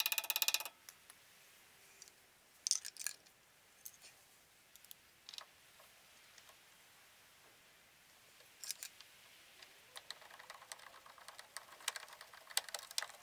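Scattered small clicks and light metallic taps of hand tools and parts being handled, with a brief rattle at the start and a faster run of fine clicks from about ten seconds in.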